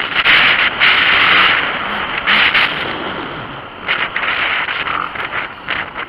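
Wind noise buffeting the camera microphone on a motorcycle riding a gravel dirt trail. It swells in loud gusts and fades between them, covering the bike's own running sound.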